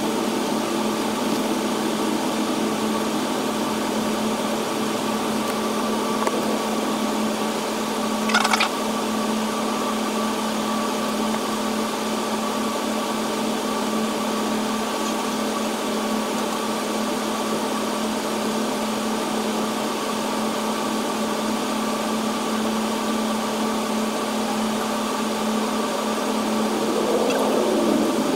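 Steady cabin hum of a Boeing 777-300's jet engines idling as the airliner taxis, heard from a window seat. A short sharp noise comes about eight seconds in, and near the end a sound dips and rises in pitch.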